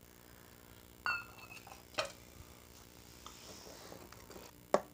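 A utensil clinking against a mixing bowl as cake batter is beaten by hand: three separate clinks, the first about a second in with a brief ring, the last near the end.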